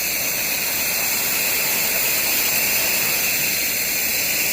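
Pressure washer spraying water: a steady, unbroken hiss of the high-pressure jet from the wand.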